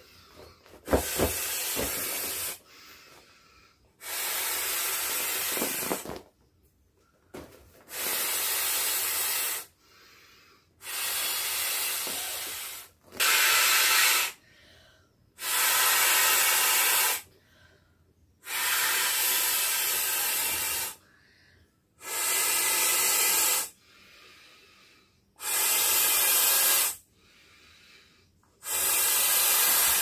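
A transparent vinyl beach ball being blown up by mouth: about ten long, strong exhalations into its valve, each one to two seconds long, with short pauses for breath between them.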